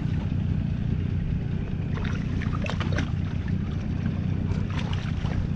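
Steady low rumble of a boat on the water, with a few short sharp sounds about two to three seconds in and again near the end.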